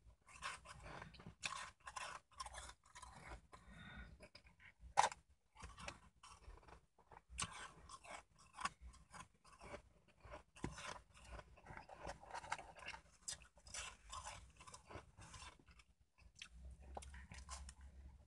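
A person crunching and chewing mouthfuls of shaved ice, a fast, irregular run of crisp crunches with a sharper, louder crunch about five seconds in.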